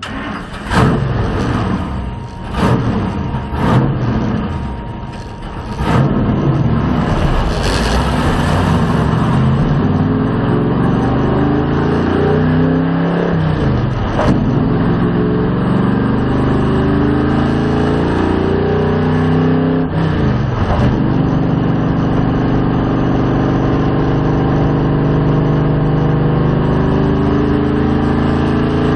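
Stock car V8 engine heard from inside the cockpit, pulling away with a few sharp, uneven bursts in the first seconds. It then accelerates hard with its pitch climbing, dips briefly twice at gear changes about halfway and two-thirds through, and settles into a steady high-rev run.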